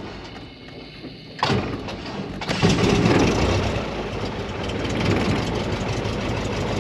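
Light aircraft piston engine of a small Cessna starting: it comes in suddenly about a second and a half in, picks up about a second later, then runs steadily at idle with the propeller turning.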